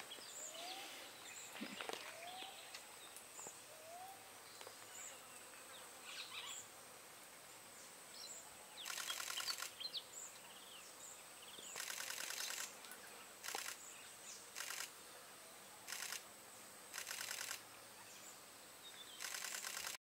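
Quiet natural ambience: faint scattered bird chirps and a steady high-pitched insect whine, broken from about nine seconds in by several short, buzzy rattling bursts, each lasting a fraction of a second to about a second.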